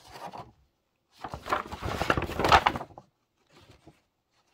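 Pages of a paper cross-stitch pattern chart being turned and handled: paper rustling and crinkling, loudest for about two seconds in the middle, with softer rustles before and after.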